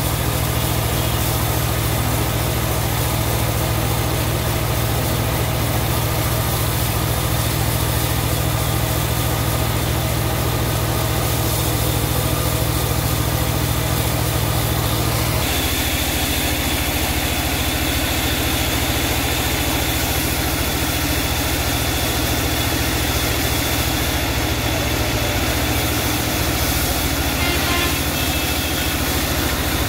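Portable sawmill's engine running steadily. About halfway through its sound changes: the low hum drops and a steady high tone comes in.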